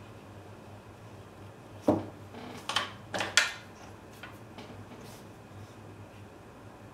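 Paintbrushes being set down and picked up at a painting table: a soft knock about two seconds in, then a quick run of sharp clicks and clatters over the next second and a half.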